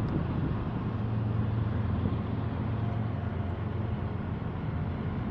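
Norfolk Southern diesel locomotive approaching at low speed, its engine running with a steady low drone.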